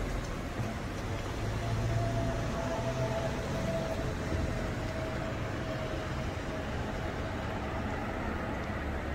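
Street ambience with a steady low rumble of traffic, and a faint hum that holds for a few seconds in the middle.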